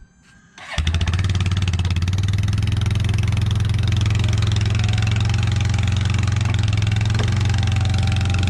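A small engine comes in suddenly under a second in and then runs steadily and loudly.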